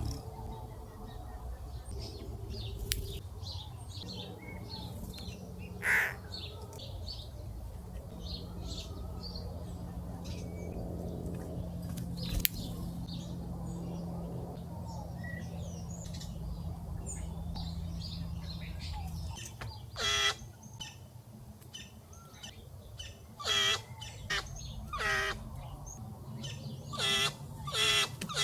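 Small wild birds chirping and calling repeatedly at a feeder, with a low steady hum underneath for most of it. Louder, fuller calls come in about two-thirds of the way through and repeat several times near the end.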